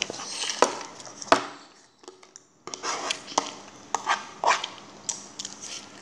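Irregular sharp taps and knocks close to the microphone, about half a dozen in all, the loudest about a second and a half in, with a short quiet gap about two seconds in.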